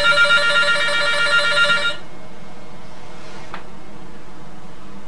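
Desk telephone ringing for an incoming call: one ring of about two seconds, then a pause of about three seconds in the ring cycle.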